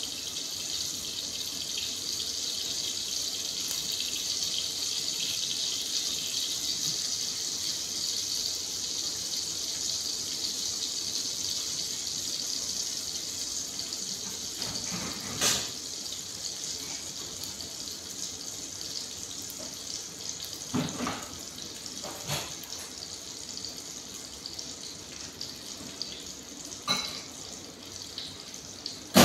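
Frying pan on a gas burner sizzling steadily, the hiss easing off a little over the second half. A few sharp knocks come about halfway in and later.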